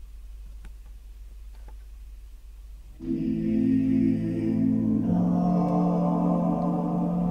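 A quiet stretch with a low hum and a few faint clicks, then about three seconds in choral music starts: voices singing long held chords.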